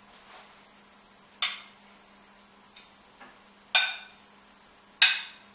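Metal spoon clinking against a glass serving bowl while scooping fruit salad out of it: three sharp, ringing clinks about a second apart, with a couple of faint ticks between.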